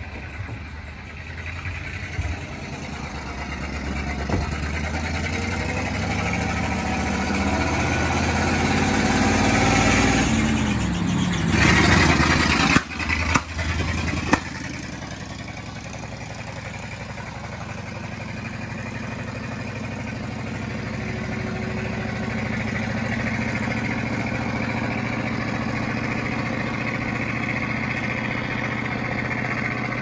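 1946 Ford logging truck's engine pulling away, its pitch and loudness climbing over about ten seconds to a peak. A few sharp knocks follow, then a steady engine drone.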